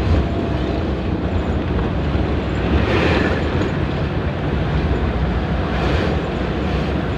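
Steady low rumble of a moving vehicle's engine and running noise, with wind buffeting the microphone.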